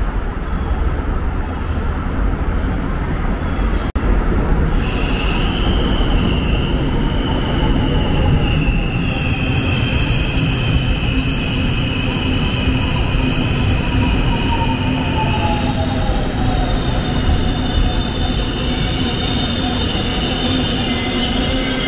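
Seoul Subway Line 4 train pulling into the station behind platform screen doors: a steady rumble of wheels on rail, with high wheel squeal setting in about five seconds in and a motor whine falling in pitch as it brakes.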